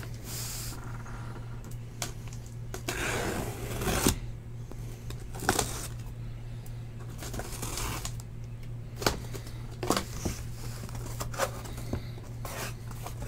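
A cardboard shipping case being opened and handled by hand: scattered scrapes, rustles and light knocks of cardboard, the longest scraping stretch about three to four seconds in, over a steady low electrical hum.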